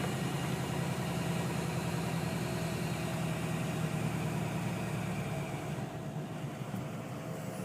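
Ford 6.0L Power Stroke diesel engine running steadily, with the high winding of its turbo and an airy whooshing hiss over it, which the owner takes for air getting out somewhere on the turbo's intake side. The hiss thins out about six seconds in.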